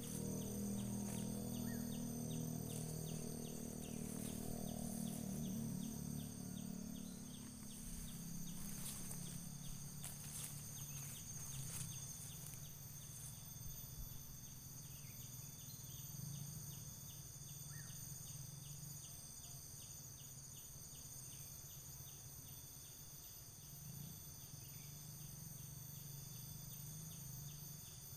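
Forest insects chirring steadily in several high, layered tones, with a regular ticking call that thins out about halfway through. A low rumble fades out over the first several seconds.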